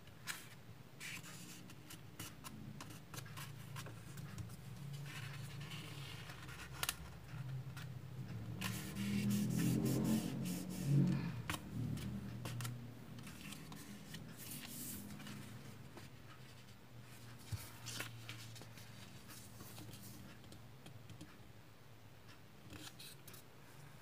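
A sheet of origami paper being folded by hand: crinkling and rustling paper with short crackles as fingers press the creases flat, louder for a few seconds about nine to twelve seconds in.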